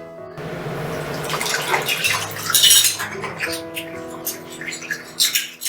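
Dishes and cutlery clinking and clattering in a rapid run of sharp knocks, loudest about two and a half seconds in and again near the end, over soft background music.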